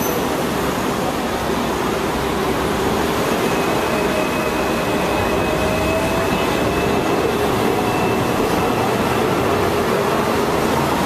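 Hong Kong double-deck electric tram running along its street track, heard from on board: a steady rumble with a few thin whining tones that drift slightly in pitch.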